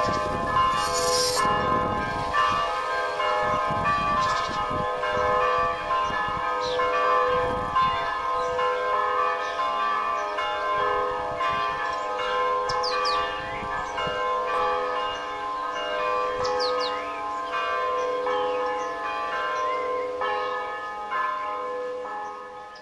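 Orthodox church bells ringing in a continuous peal: several bells struck again and again, their ringing overlapping, fading toward the end.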